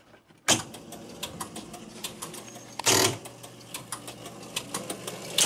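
A 1962 Williams World Series electromechanical pitch-and-bat game switched on with a sudden clunk about half a second in, then running with a steady hum and rapid mechanical clicking, with a louder burst near the middle. This is the noise of its faulty running man unit, whose base runners keep running nonstop.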